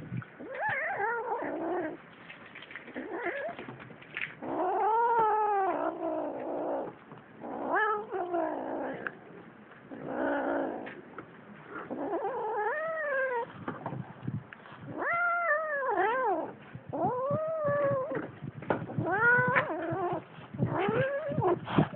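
Two young cats caterwauling in a fight: a long series of drawn-out yowls, each rising then falling in pitch, coming every second or two with short breaks between.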